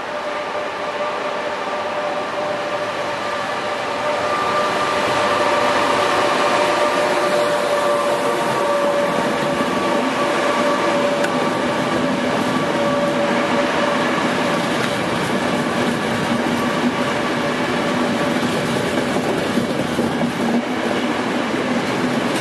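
Trenitalia E464 electric locomotive and its passenger coaches running through a station. The rolling noise of the wheels on the rails comes with a steady high whine and grows louder about four seconds in, as the train draws close and passes.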